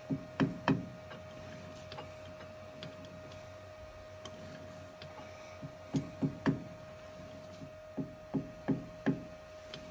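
Soft-faced mallet gently tapping an aluminium piston to seat it in a lathe chuck: short light taps in quick groups, three near the start, three about six seconds in and four near the end, over a steady faint hum.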